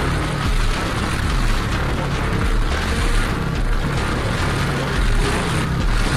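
Yamaha MT-09's inline three-cylinder engine running on the road with a loud exhaust, under a steady rush of wind.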